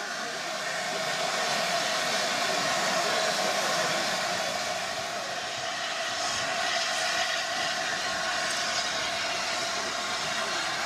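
LNER A4 steam locomotive 4464 Bittern at the head of a train of coaches, giving off a steady hiss of steam.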